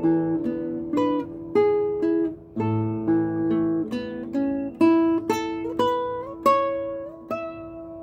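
Classical guitar played fingerstyle: a melody of plucked notes over held bass notes, ending on a note struck about seven seconds in and left ringing.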